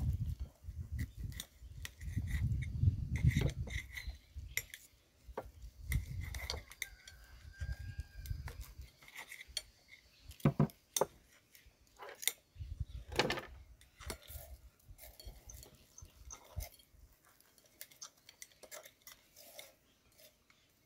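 Cutlery and dishes clinking in scattered sharp clicks as the barbecued beef rib is cut and served, with a low rumble through the first four seconds or so.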